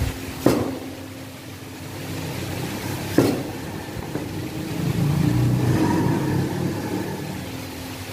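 Two sharp knocks of a knife on a cutting board while onion is sliced into rounds, about half a second in and again about three seconds in, over a steady low hum. In the second half a low motor-vehicle rumble swells and then fades.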